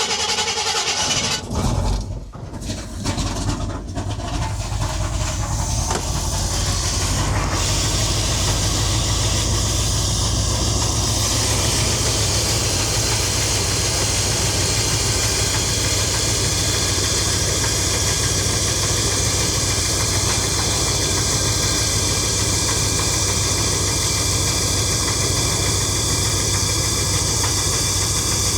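1970 Chevy C20's 454 big-block V8 starting and settling into a steady idle, with one valve cover off. It is being checked for a clanging that the owner hopes is valve clatter from the hydraulic lifters rather than rod knock.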